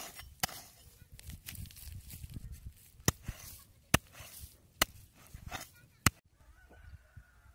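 A hoe chopping into dry, clumpy soil: sharp strikes roughly once a second, with scraping and crumbling of earth between them. The strikes stop about six seconds in.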